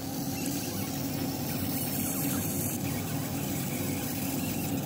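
JPT 20M8 MOPA fiber laser marker running a cleaning pass over a brass lighter: a steady, even buzzing hum from the machine as the beam scans.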